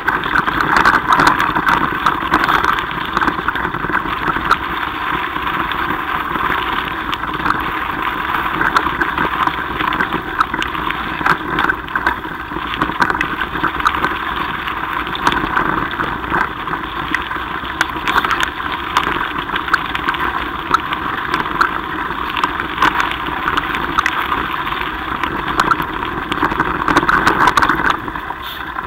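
Mountain bike rolling along a gravel track: a steady rumble of tyres on loose stones and wind on the microphone, with frequent small clicks and rattles.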